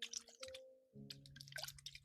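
Soft, wet crackling and dripping clicks of ASMR hair washing, over a faint steady background tone.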